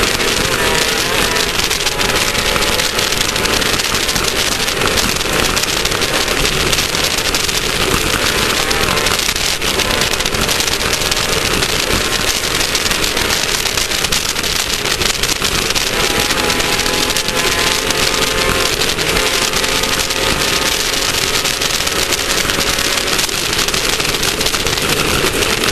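Class 1600 off-road race buggy at speed, its air-cooled Volkswagen 1600 engine running hard under a constant loud rush of wind, rattle and dirt noise. The engine tone fades in and out beneath the noise.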